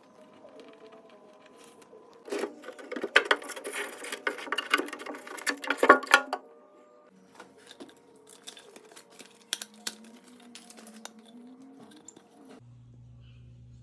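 Packaging being handled and pulled off: irregular crackling, rustling and clicking, densest and loudest between about two and six seconds in, then sparser clicks. A steady low hum comes in near the end.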